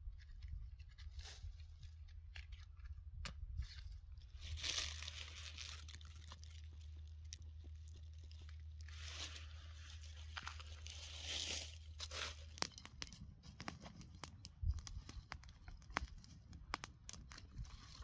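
Dry fallen leaves and twigs rustling and crackling as a small fire catches in them, with sharp crackles coming thicker in the second half.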